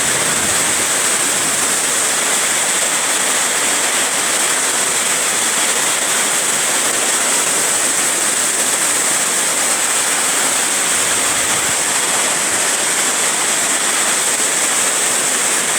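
Heavy rain pouring down in a storm: a loud, steady rush that does not change.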